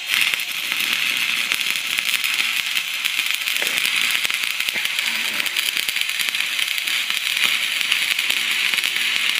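Stick (arc) welding with a 6013 electrode, laying a build-up bead on a snowmobile ski's steel wear bar: the arc gives a steady, even crackle and hiss.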